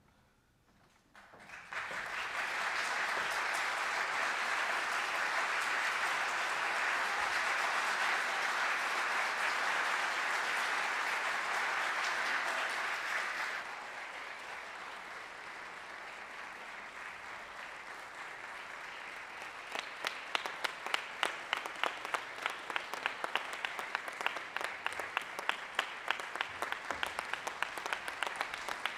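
Concert audience applauding, starting about a second and a half in. It is loud for the first dozen seconds, then drops somewhat. From about two-thirds of the way through, a steady run of sharp, closely spaced claps stands out over it.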